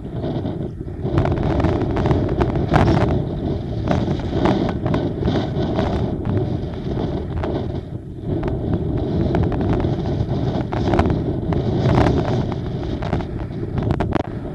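Wind buffeting the microphone in a dense, uneven rumble, with choppy sea water splashing in brief irregular bursts.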